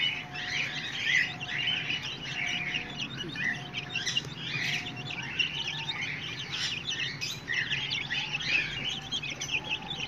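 A flock of chicken chicks about two weeks old, peeping continuously and overlapping as they feed.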